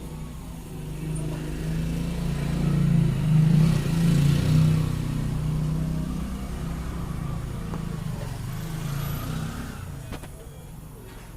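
A motor vehicle engine running past, growing louder over the first few seconds and then fading.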